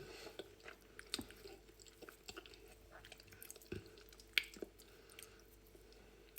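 Faint sounds of a person chewing and eating soft fufu, heard as irregular short wet clicks and smacks of the mouth.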